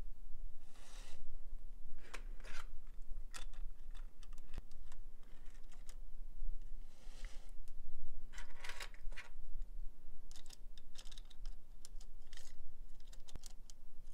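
N scale Southern Pacific model locomotive running on layout track: irregular clicking and rattling of its small wheels over the rail joints, over a faint steady hum. It runs fine but needs more power than expected, which the owner thinks may mean it needs a bit of oil.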